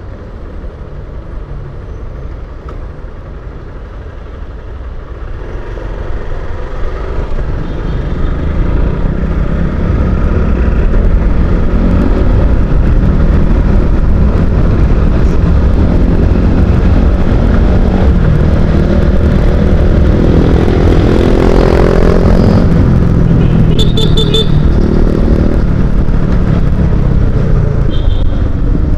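Motorcycle engine and road noise heard from the rider's seat, pulling away and accelerating, rising in pitch and getting louder through the first half, then running steadily at road speed. A couple of brief high chirps near the end.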